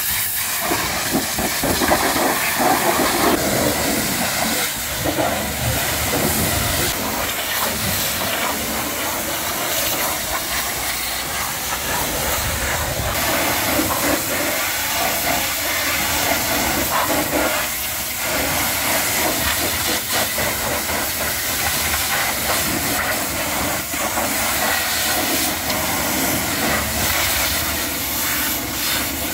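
High-pressure water jet from a pressure-washer lance hissing steadily as it blasts dirt off a truck trailer.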